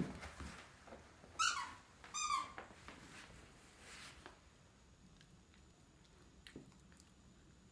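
Wheaten terrier puppy giving two short high-pitched whines about a second and a half apart, the first falling in pitch, then faint soft ticks and rustles as it mouths its toys.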